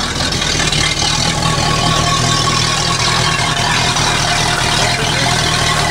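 Four Winns boat's sterndrive engine running steadily just after starting, after long storage, its raw-water pump pushing cooling water out through the outdrive.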